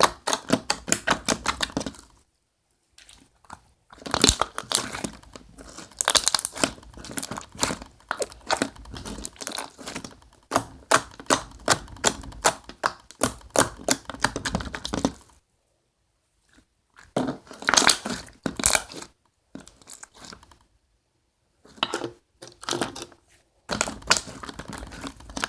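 Homemade glue-and-lotion slime being squeezed and stretched in the hands: rapid sticky clicks and pops, in several bursts with short pauses between them.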